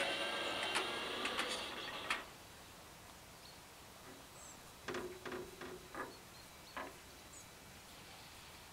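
Level-crossing barrier drive (WSSB type) raising the two booms: a steady motor whine with a few clicks that stops with a clunk about two seconds in as the barriers reach upright. Later come a few faint knocks and a faint bird chirp.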